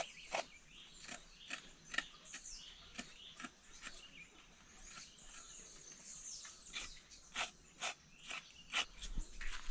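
Knife blade peeling the skin off cassava roots by hand: short, crisp scraping strokes about twice a second, thinning out for a moment midway.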